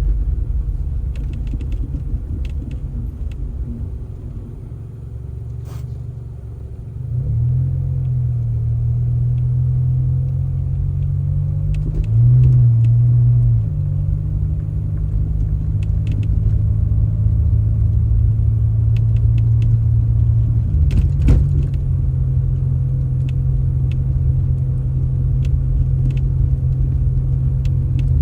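A motor vehicle's engine running with a low, steady rumble. Its note steps up about a quarter of the way in, gets briefly louder near the middle, and shifts again about two-thirds through, as with changing engine load.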